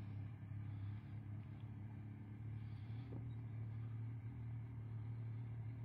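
Steady low drone of an idling engine, heard from inside a car.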